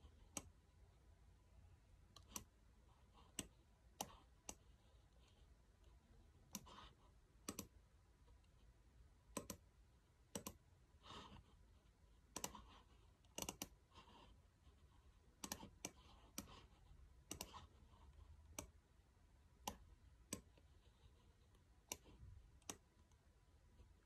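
Irregular single and double clicks of a computer pointing device, sparse and sharp against a very quiet room.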